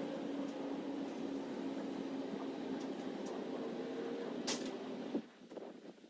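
A steady mechanical hum with a low tone, which cuts off abruptly about five seconds in; a sharp click comes just before it stops.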